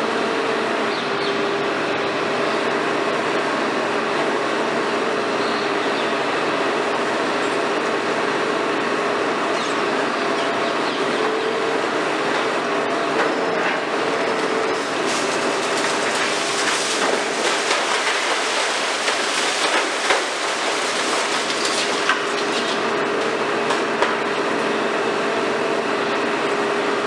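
High-reach demolition excavator running steadily, its engine and hydraulics giving a constant drone with a steady whine. From about halfway through, scattered knocks and crackles of concrete breaking and debris falling come over it.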